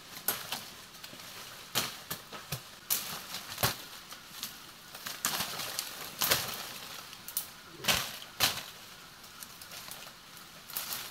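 Machete chopping brush and saplings: a dozen or so sharp, irregularly spaced chops, with leaves and branches rustling in between.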